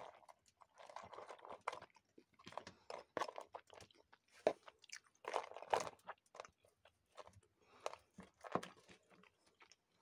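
Chewing of grilled moose shashlik close to the microphone, mixed with a fork clicking and scraping in a plastic food container: irregular clusters of short crunches and clicks.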